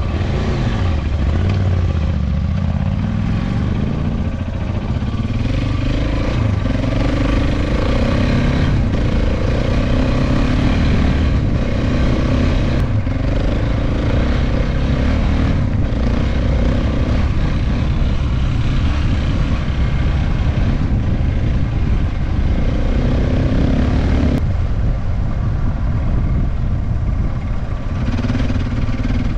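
Enduro motorcycle engine running under way, its pitch rising and falling again and again as the throttle is opened and eased, over a steady low rumble.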